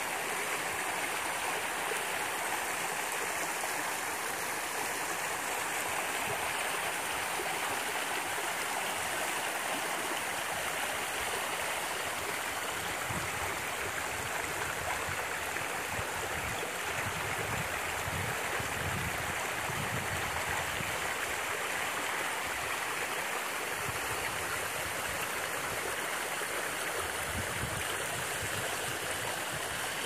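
Shallow water rushing steadily over bare rock slabs at a small waterfall cascade.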